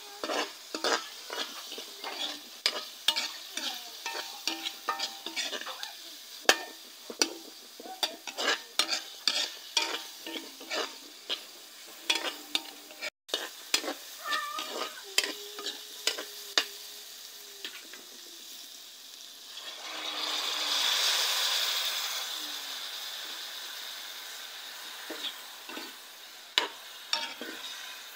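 A spatula scraping and knocking against a frying pan as diced onions sauté in oil with a light sizzle. About two-thirds of the way in, a loud sizzle swells up and slowly fades as wet, sauced meat goes into the hot pan.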